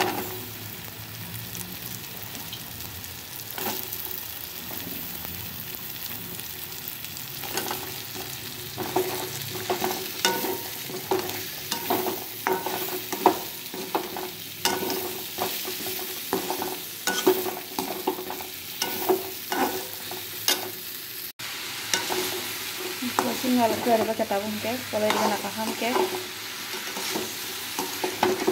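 A perforated metal spoon stirs chopped green vegetables through sizzling masala in a steel wok. There is a steady frying sizzle under frequent scrapes and clicks of the spoon against the pan, and the stirring gets busier from about eight seconds in.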